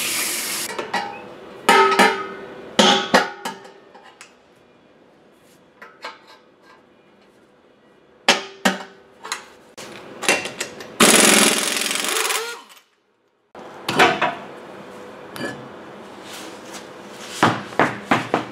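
Air impact wrench hammering the lug nuts off a truck's front wheel in several short bursts, the longest about eleven seconds in, with knocks and clunks as the wheel and nuts are handled.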